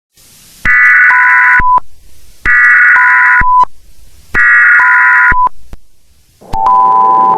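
Emergency Alert System SAME header: three bursts of warbling digital data tones about a second each, every burst ending in a short steady beep. About six and a half seconds in, the loud two-tone EAS attention signal starts, announcing a tornado warning broadcast.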